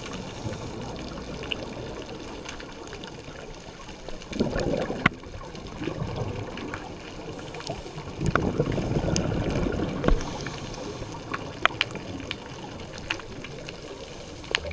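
Underwater bubbling and gurgling from a scuba diver's exhaled breath, swelling louder twice, about four seconds in and again from about eight to ten seconds, with scattered sharp clicks.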